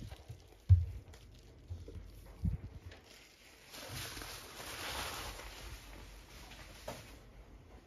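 Handling sounds of a paperback book laid down on a cloth-covered table: a soft thud about a second in, a lighter knock a couple of seconds later, then a brief rustle.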